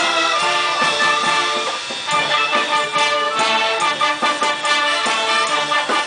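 Brass band with sousaphones playing a tune with a steady beat, the beat standing out more strongly from about two seconds in.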